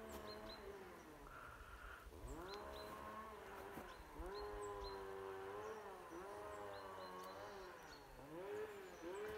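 Goats bleating: a string of long, wavering calls, one after another, at two or three different pitches. Small birds chirp faintly in the background.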